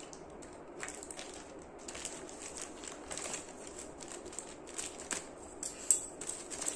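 Scissors snipping through a plastic courier mailer, with the plastic crinkling and rustling as the bag is cut and pulled open; the sharpest crackle comes about six seconds in.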